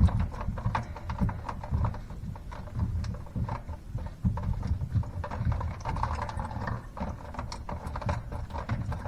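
Irregular clicks and light knocks of a plastic sink drain trap being handled under the sink after being unscrewed by hand.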